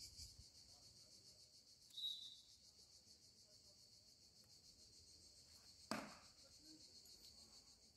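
Faint, steady high chirring of crickets, with a short high chirp about two seconds in and a single sharp click about six seconds in.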